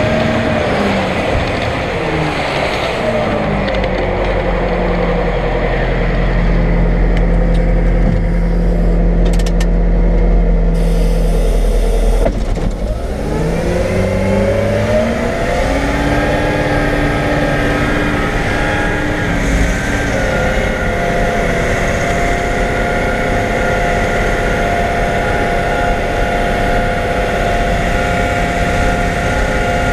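Caterpillar 769C haul truck's V8 diesel engine heard from inside the cab. Its revs fall, then hold with a deep rumble. About twelve seconds in they dip sharply and climb again as the truck pulls away, then run steady with a step in pitch near the end of the climb, like a gear change.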